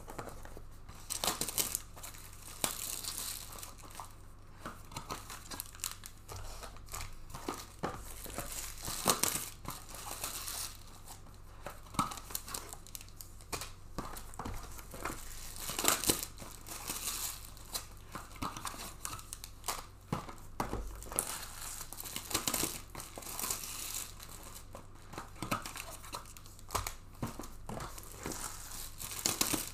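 Paper packing filler crumpling and box wrapping tearing as sealed trading-card hobby boxes are unpacked one after another, an uneven run of crinkles, rips and sharp crackles.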